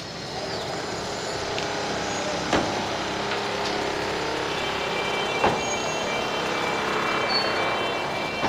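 Two sharp knocks about three seconds apart, hammer blows on concrete during demolition work, over a steady din of street traffic and a gathered crowd.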